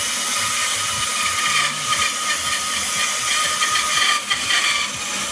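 Bandsaw running and cutting through the metal of an Air Arms S400 air rifle's barrel: a steady hiss with a constant thin whine, growing rougher through the middle of the cut.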